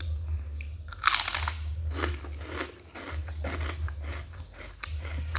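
A person biting into crunchy pickled fruit (asinan buah), close to the microphone: one loud crunch about a second in, then several wet chewing crunches.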